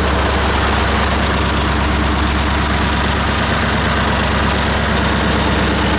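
1948 Buda 8-DC-1125 straight-eight diesel engine, 1125 cubic inches, idling steadily with a fast, even low-pitched rhythm.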